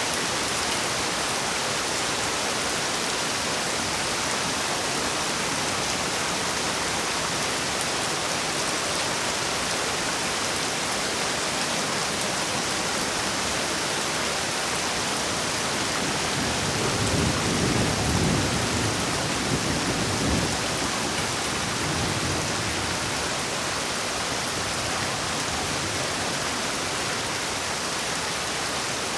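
Heavy rain falling steadily, with a low roll of thunder rumbling for several seconds a little past the middle.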